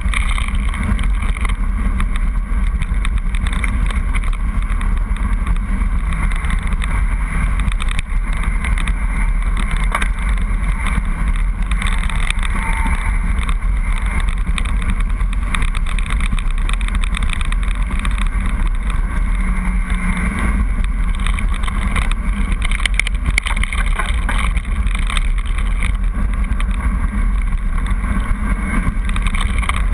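Mountain bike rolling fast down a gravel track: steady wind rumble on the microphone mixed with the tyres on loose stones and the bike rattling, at an even level throughout.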